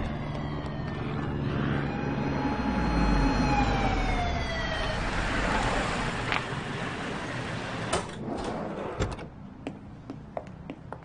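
A vehicle pulling up: engine rumble swelling and then easing off, with a whine that slowly falls in pitch. Near the end come a couple of sharp clunks, like car doors.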